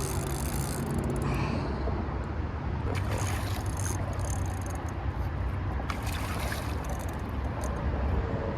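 Water splashing and sloshing in the river shallows in a few bursts as a hooked carp thrashes at the bank, over a steady wind rumble on the microphone.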